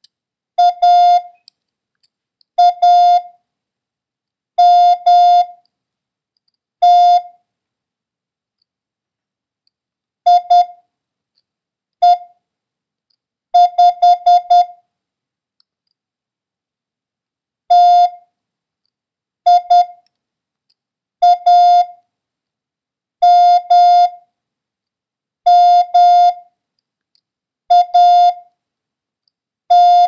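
Morse code practice tone at about 700 Hz keying single characters for copying, one group of dits and dahs every two seconds or so with silence between. About fourteen seconds in comes a run of five quick dits, the number 5.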